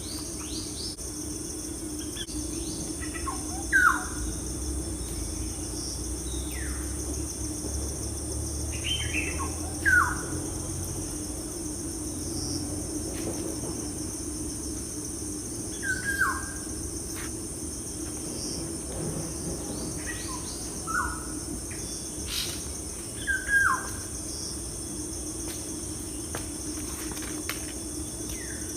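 A bird calling every few seconds, each call a short note sliding downward, over a steady high-pitched drone of insects such as crickets.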